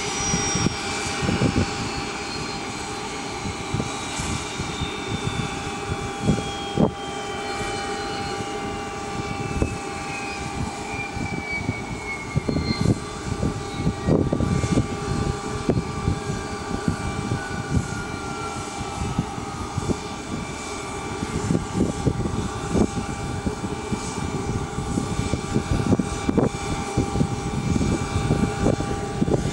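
Citation Latitude business jet's turbofan engines spooling down after shutdown, a whine falling slowly in pitch over about twenty seconds, over steady hums and an uneven low rumble.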